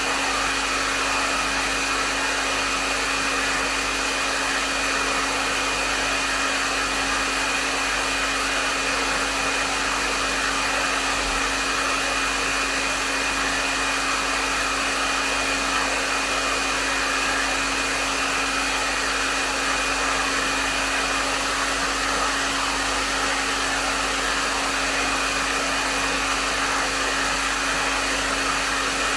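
Hair dryer running steadily: an even rush of blown air with a low motor hum and a faint high whine, unchanging throughout.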